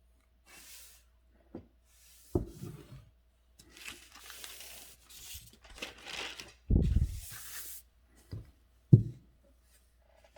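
Calligraphy brush strokes on paper: a series of soft, papery swishes, with several short knocks in between, the sharpest one near the end.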